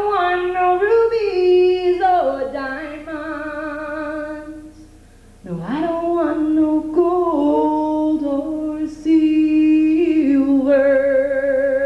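A woman singing two long, drawn-out melodic phrases in a folk song, each starting with an upward swoop in pitch.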